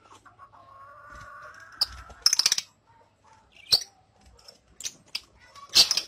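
Lovebirds in an aviary making sharp, shrill chirps: a quick cluster about two seconds in, then single ones near four, five and six seconds. Before them, a lower, drawn-out bird call holds for about a second and a half.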